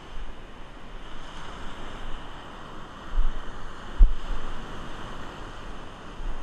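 Surf washing in over the beach, with wind rumbling on the microphone; two short low bumps of wind or handling about three and four seconds in, the second the loudest.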